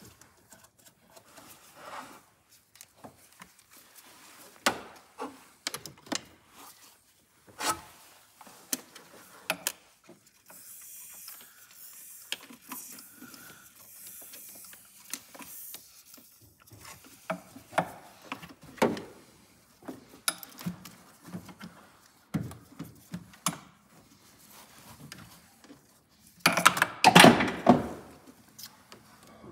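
Hand work on plastic trim and parts in a car's engine bay: scattered clicks, knocks and rubbing, with a steady hiss for several seconds near the middle. Near the end a loud rattling clatter as a small part is dropped and falls down into the engine bay.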